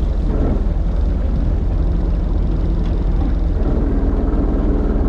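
Fishing boat's engine running steadily, a continuous low rumble.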